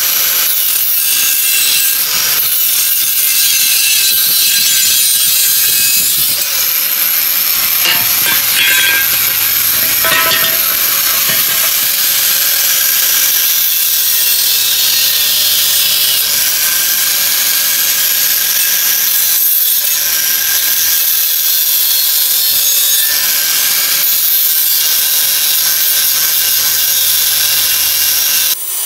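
Electric angle grinder with a cut-off disc cutting through rusty square steel tubing: a loud, steady, high grinding whine that stops near the end.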